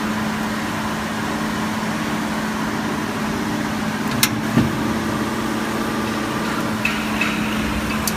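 Hydraulic tube-punching ironworker running with a steady motor-and-pump hum. About four seconds in there is a sharp click and then a dull thud as the punch works the hollow steel tube, and a few light clicks follow near the end. The punching stroke itself makes hardly any sound.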